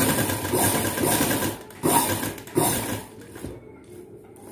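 Tailoring sewing machine stitching a cotton handkerchief hem with a rapid needle clatter, in two runs with a brief pause between them, stopping about three seconds in.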